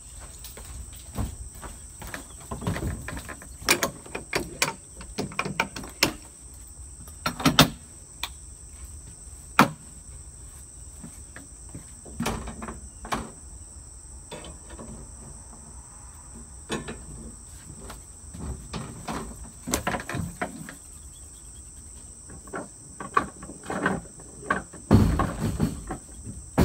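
Steady high insect chorus, with irregular footsteps and wooden knocks in an open streetcar as a person walks the aisle past the benches. A louder low rumble comes near the end.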